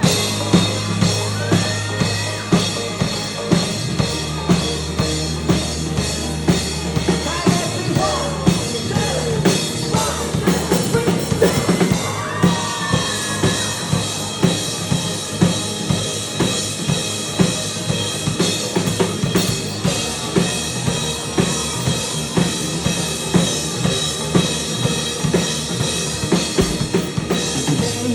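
Live rock band playing an instrumental passage: a drum kit keeping a steady beat under a sustained bass line, with other instruments on top.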